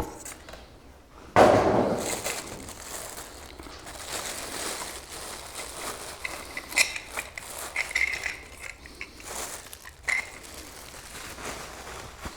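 Handling noises: rustling and crinkling with light clicks and clinks, and a louder rustling burst about a second and a half in that fades over a second.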